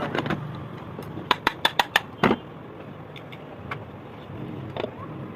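Irregular sharp metallic clicks and taps of ceiling fan parts being handled and fitted onto the shaft and bearing, over a steady low hum. The clicks come in a quick cluster about a second and a half in, with one stronger knock just after two seconds.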